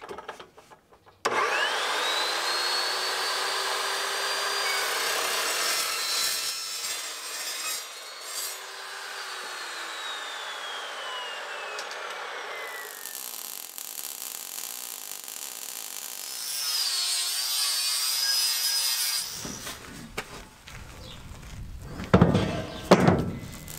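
Evolution S355 14-inch metal-cutting chop saw cutting 1x2-inch 14-gauge steel tube: the blade spins up with a rising whine, runs through the cut, then winds down with a long falling whine, followed by a second, shorter cut. A couple of loud short sounds come near the end.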